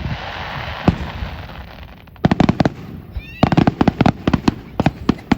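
Fireworks display: a crackling hiss, then rapid volleys of sharp cracks and pops, with a short warbling whistle about three seconds in.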